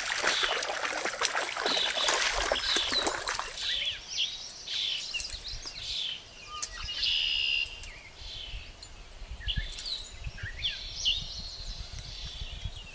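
Water splashing and churning at the creek's surface for the first three or four seconds. Then songbirds call in repeated short, high phrases about once a second.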